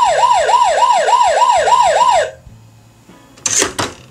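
Electronic ambulance siren from a Robocar Poli Amber toy ambulance, a fast rising-and-falling yelp about three times a second, which stops about two seconds in. Near the end, a few sharp clicks as the buttons on the toy's roof are pressed.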